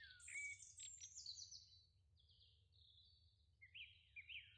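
Faint birds chirping: scattered high chirps and whistles, then from about three and a half seconds in a quick series of short repeated notes, two or three a second.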